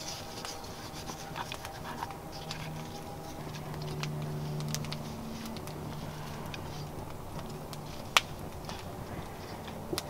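Quiet handling of food in a cast iron Dutch oven: small rubbing, rustling and clicking sounds as salt is rubbed into a raw pork joint and rosemary sprigs are laid around it. There is a low steady hum underneath, and one sharp click about eight seconds in.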